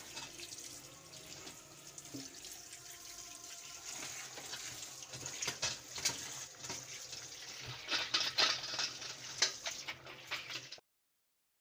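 Tap water running onto boiled tripe pieces in a perforated steel colander while hands rub and rinse them, with splashes. The sound cuts off suddenly near the end.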